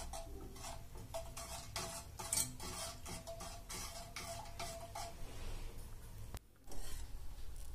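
Wire whisk stirring tamarind water in a metal pan, its wires clicking against the pan about two to three times a second.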